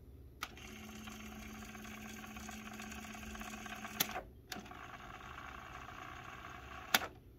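Nakamichi 480 cassette deck's tape transport winding the cassette at speed, a faint steady whir with a low hum. Its transport buttons click about four seconds in, the whir stops and restarts half a second later, and another click near the end stops it.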